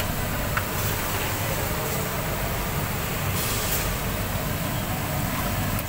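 Steady machinery hum and noise, with a short hiss about three and a half seconds in.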